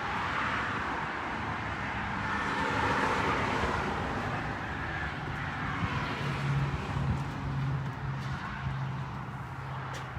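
Road traffic: a vehicle passing, swelling and fading, then a steady low engine hum over the later part.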